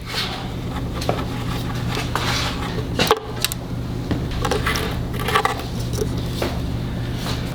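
Scattered metallic clinks and taps of hand tools and small parts being handled during engine repair, a handful of sharp clicks over a steady low hum.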